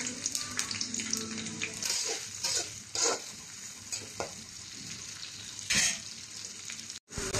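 Sliced onions sizzling in hot oil in a kadai, with a spatula scraping and stirring them through the pan several times. The sound cuts out briefly just before the end.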